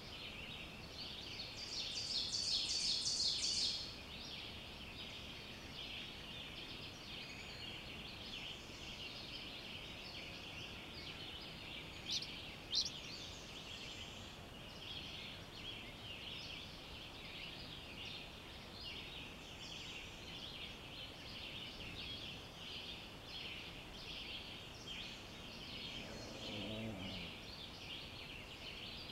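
Dawn chorus: many songbirds singing at once in dense woodland. A nearby bird gives a louder, rapid trill about two seconds in, two sharp high chirps stand out around twelve seconds, and a lower-pitched call comes in near the end.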